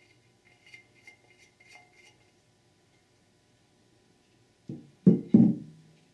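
Faint metallic clicking as a bolt is threaded by hand into an accumulator end plug in an aluminium transmission valve body. Then, near the end, three louder ringing knocks of the metal casting against the workbench.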